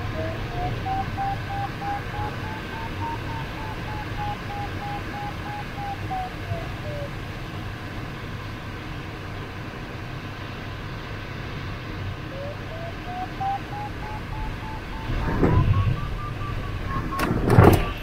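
Glider's electronic variometer beeping in quick even pulses, its pitch rising then falling in the first few seconds, the sign of the glider climbing in lift and then losing it. The beeping stops for several seconds, then returns and climbs higher near the end. Steady airflow noise fills the cockpit throughout, and a few loud knocks come near the end.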